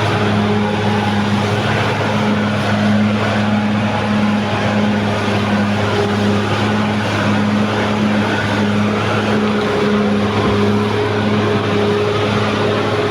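Caterpillar D6R XL bulldozer's diesel engine running steadily, a constant-pitch drone with no revving.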